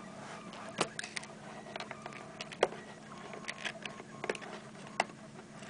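A cardboard box being handled and opened by hand: scattered sharp clicks and knocks of cardboard with light rustling between them, over a faint steady hum.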